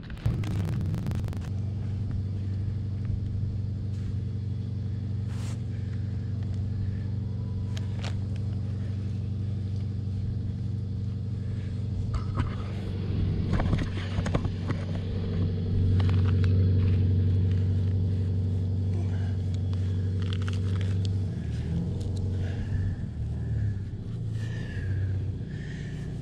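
An engine running steadily nearby, a low hum that swells about two-thirds of the way in and shifts pitch shortly after. Over it come scattered scrapes, rustles and clinks of burlap and a wire basket being pried off a tree's root ball.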